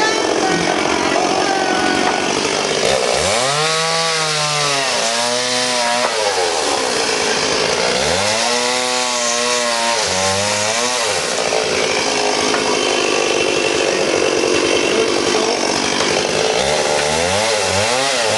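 A chainsaw runs throughout, cutting into wood. Its engine revs up and drops back down three times: about three seconds in, about eight seconds in, and near the end.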